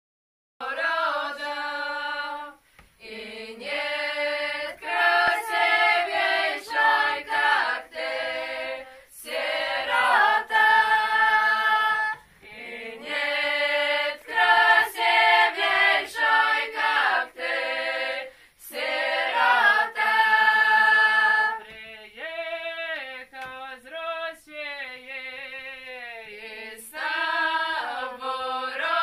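A small group of women singing a Belarusian folk song unaccompanied, in full phrases of a few seconds with short breaks between them. Near the end a quieter, thinner passage comes before the full singing returns.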